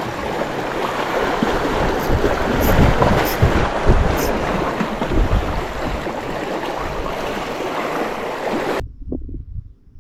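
Wind buffeting the microphone over the rush of the sea, a steady loud noise with gusty low rumbles that cuts off abruptly near the end.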